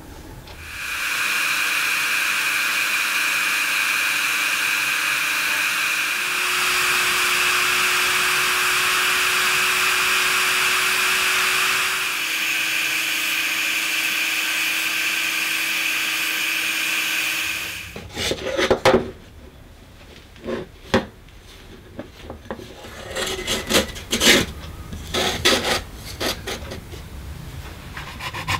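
High-speed rotary tool with a sanding drum grinding a carbon-fiber plate, running steadily with a high whine for about sixteen seconds; its pitch steps up slightly about six seconds in and back down about twelve seconds in. It then stops, and a series of irregular rasping strokes follows.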